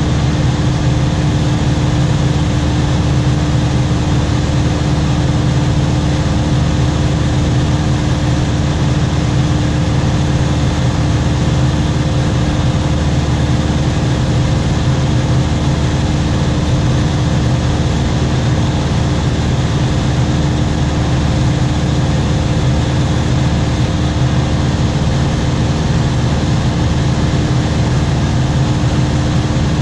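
Aircraft engine running steadily in flight: a constant loud drone with a steady hum that holds one pitch throughout.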